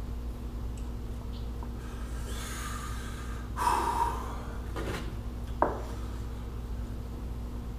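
A man breathing hard and blowing out forcefully through pursed lips against the burn of a Trinidad scorpion pepper, the strongest exhale a little under four seconds in, followed by a sharp click near the end.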